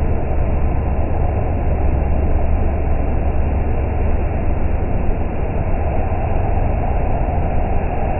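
Steady low machine drone with a strong hum and even noise, no distinct clunks, from a CNC machining centre.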